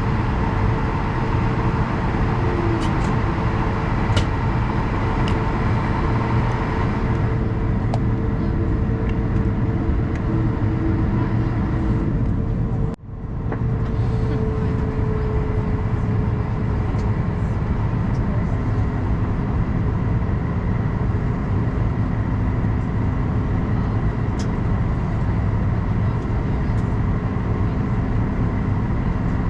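Cabin noise of an Airbus A220-100 taxiing after landing: a steady rumble and hum from its Pratt & Whitney PW1500G geared turbofans at taxi power, with a constant whine tone. The sound cuts out for a moment about 13 seconds in.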